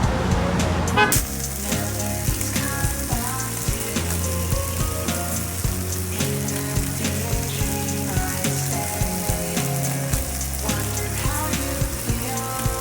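Food sizzling in a hot frying pan, a dense steady hiss that cuts in about a second in.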